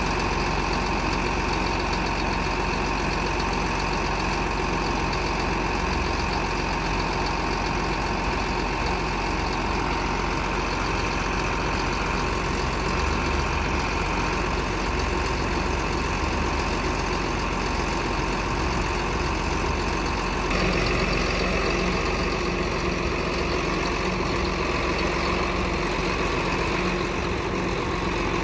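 A heavy engine idling steadily, with a sudden change in its tone about twenty seconds in.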